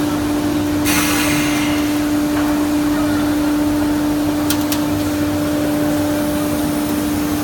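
CNC router running with a steady high-pitched hum over a wide hiss. There is a short burst of hiss about a second in, and two sharp clicks a little after four seconds.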